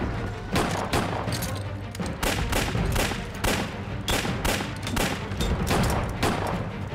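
Pistol gunfire in a shootout: an irregular run of sharp shots, about two a second, from more than one handgun, over background music with a steady low note.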